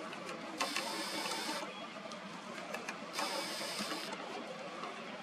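Camera lens zoom motor whirring twice, each time for about a second, over a faint steady outdoor background.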